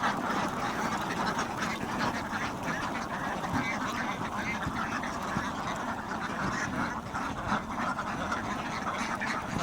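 A dense, unbroken din of many short animal calls overlapping, holding at an even level.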